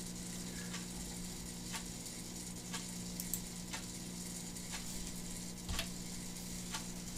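Quiet room tone: a steady low electrical hum with a faint click about once a second.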